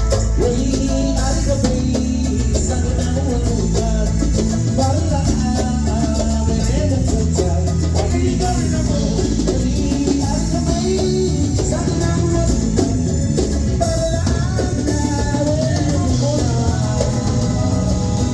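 Live band playing a song, with drum kit, bass and guitar under a wavering lead melody, steady and loud throughout.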